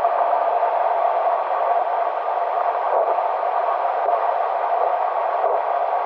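Steady tyre and road noise heard from inside a car cruising on an expressway, an even hiss that neither rises nor falls.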